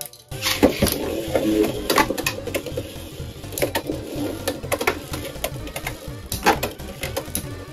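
Two Beyblade X spinning tops whirring against the floor of a clear plastic stadium, a busy rattling buzz that starts just after the beginning. It is broken by sharp clacks each time the tops hit each other or the stadium wall.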